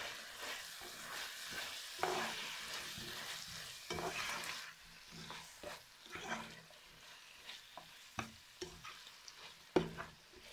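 Stew sizzling in hot oil in a nonstick frying pan while a slotted spatula stirs and scrapes it in short, irregular strokes. The sizzle fades about halfway through.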